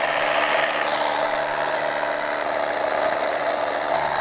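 Cordless drill boring into concrete, starting suddenly and running steadily without a break.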